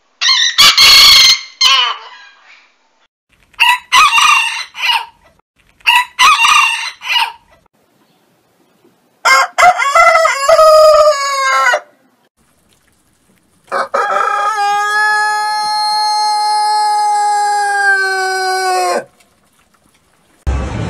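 Roosters crowing, one call after another: a crow at the start, three short calls a few seconds in, another crow near the middle, then one long crow held for about five seconds.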